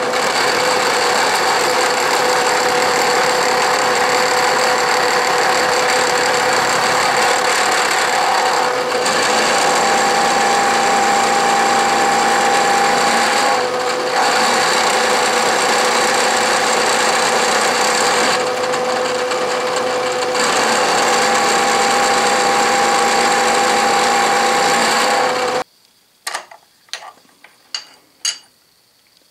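Vertical milling machine cutting a steel vise jaw with an angle milling cutter: a steady cutting noise with a held tone that shifts briefly a few times, then stops about 26 seconds in. A few sharp clicks follow as the workpiece is handled.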